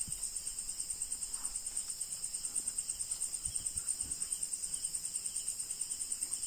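Crickets chirping in a fast, even, high-pitched pulse.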